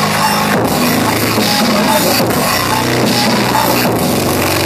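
Loud music with drums and a steady beat, played for a dance battle.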